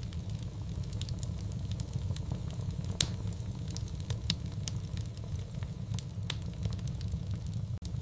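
Wood fire crackling in a fireplace: a steady low rumble of flame with scattered sharp pops, the loudest about three seconds in. The sound drops out for an instant near the end.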